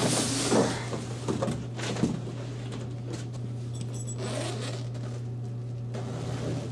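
Rustling and knocking of packaging and the bean bag chair's fabric cover being handled and pulled out of the box, busiest in the first two seconds and fainter after, over a steady low hum.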